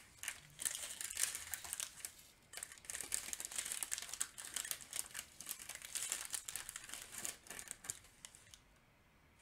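Strips of small clear plastic bags of diamond-painting drills crinkling as they are handled, a dense irregular rustle that dies away about a second before the end.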